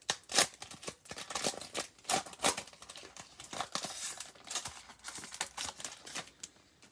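Mosaic trading-card pack being handled: the foil wrapper crinkles and tears and the cards rustle. It makes an irregular run of short crackles that dies away just before the end.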